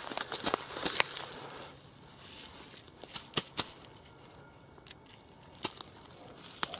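Dry grass and pine needles crackling and crunching as they are disturbed and a cucumber is pressed down into them. There is a quick run of sharp crackles in the first second, a few more about halfway through, and single ones near the end.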